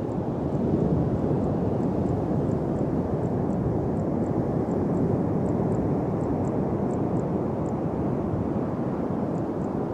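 Steady low rush of sea surf and wind, with faint irregular high ticks above it.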